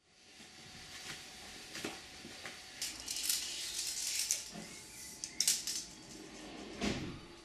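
Steel tape measure being pulled out and handled, its blade rattling and sliding in several short scraping bursts, with a dull knock near the end.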